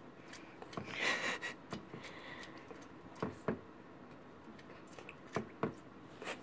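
Small dog pawing at shallow water in a stone fountain bowl: a splashy burst about a second in, then a few sharp taps and slaps of paws in the water.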